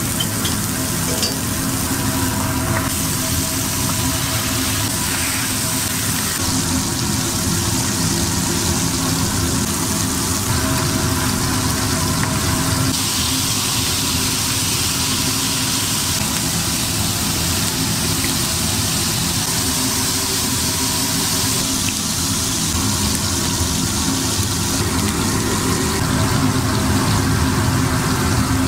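Beef burger patties sizzling steadily on a hot flat-top griddle, a constant frying hiss, with a steady low hum underneath.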